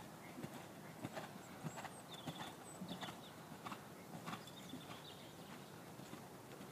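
Faint hoofbeats of a bay horse cantering on soft arena footing: irregular muffled thuds, a few to the second.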